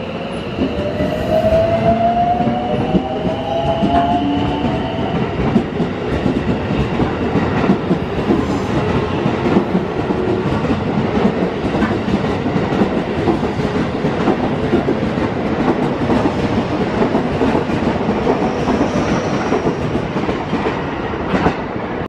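Electric commuter train pulling out of the station. Its motor whine rises in pitch over the first few seconds as it accelerates. Then comes a steady rumble with rapid clickety-clack of wheels on the rails as the cars go past.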